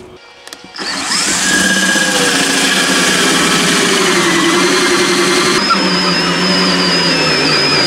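DeWalt 18V cordless drill turning a hole saw through a wooden board, starting up about a second in and then running steadily under heavy load.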